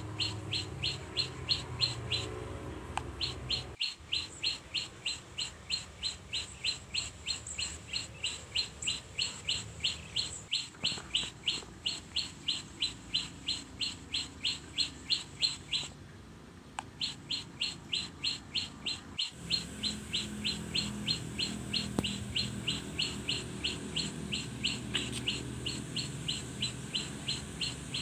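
A small bird chirping steadily in a regular series of short, high chirps, about three a second, pausing for about a second midway.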